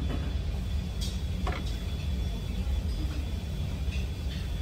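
Steady low rumble of background room noise, with a few faint clicks about a second in and near the end.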